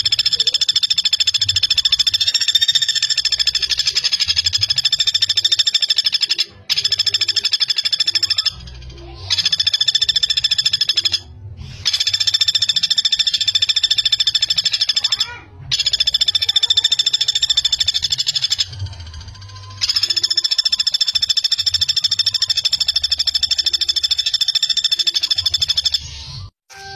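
Common flameback woodpecker (pelatuk bawang) giving long, fast rattling trills of close-spaced notes. There are about six runs, each broken off by a short pause.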